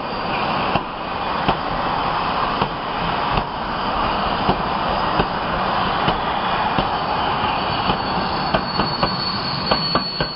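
Freight train of covered wagons rolling past close by: a steady rumble of steel wheels on rail with regular clicks as the wheels cross rail joints, over a thin high wheel squeal that grows louder near the end as the electric locomotive at the rear passes.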